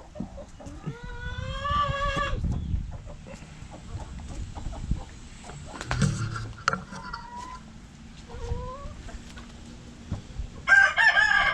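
Chickens clucking and calling in short, separate pitched calls, with a louder rooster crow starting near the end.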